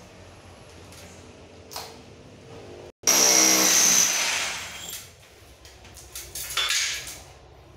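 Ryu RRH 26 rotary hammer (850 W) boring into a ceiling with an SDS core bit. About three seconds in, a loud burst of motor whine and drilling lasts about a second, then dies away. A shorter burst comes near the end.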